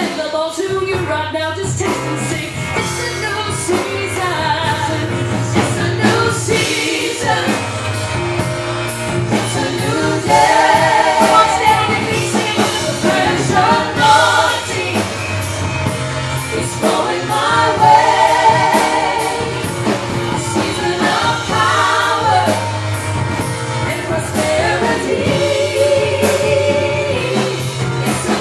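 Gospel worship song performed live: voices singing with vibrato over a band with a steady bass line.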